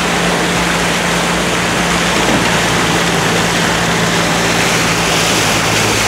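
Steady rushing of water and rain around a car driving through a flooded street, with the car's engine giving a low, even hum underneath.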